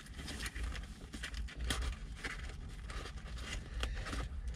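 Cardboard sandwich box being handled and opened by hand: scattered light scrapes, taps and crackles of cardboard and paper, over a low steady rumble.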